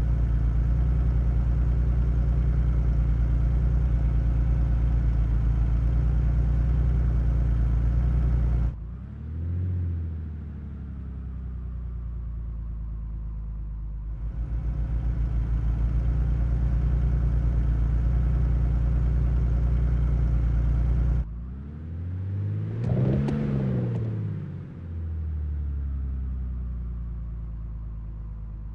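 Car engine idling steadily with a low, even note, with the throttle blipped twice: a short rise and fall about nine seconds in, and a fuller rev climbing and falling back about twenty-two seconds in.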